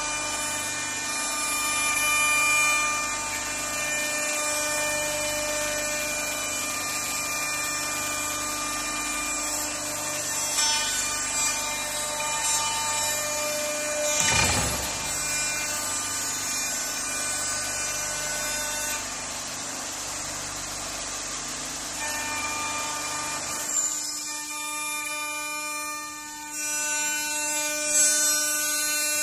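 CNC wood router spindle running at a steady whine while its bit carves a wooden door panel, with the rough hiss of the cut under the tone. About 24 s in the cutting noise drops away and the spindle's whine goes on cleaner.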